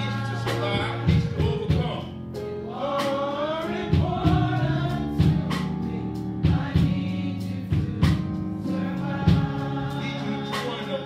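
Gospel music: a choir singing over sustained chords with a steady drum beat.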